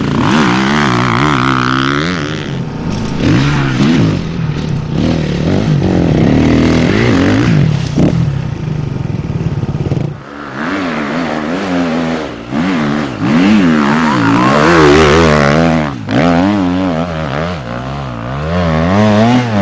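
Enduro dirt bike engines revving hard, the pitch rising and falling again and again as the riders blip and hold the throttle. The sound drops briefly about ten seconds in, then the revving picks up again.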